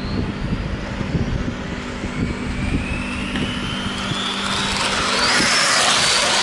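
Traxxas XO-1 electric RC car speeding down the straight: a thin high whine from its motor and drivetrain climbs steadily in pitch as it accelerates and closes in. It swells into a loud rush of air and tyre noise as it passes close by near the end, over a steady low rumble.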